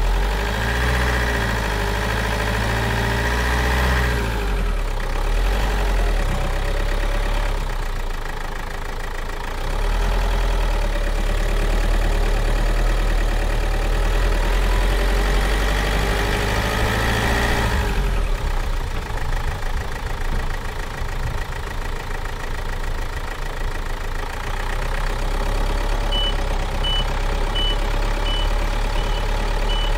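Heavy vehicle engine running and shifting in pitch, a construction-machine engine sound effect. Near the end, a row of short high beeps at an even pace.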